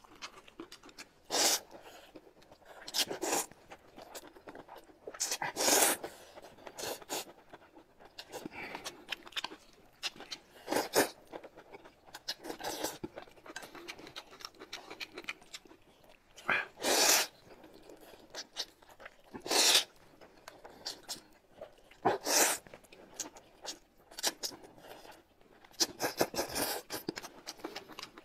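Mukbang eating sounds: noodles being slurped in short, loud bursts every two to three seconds, with quieter chewing between.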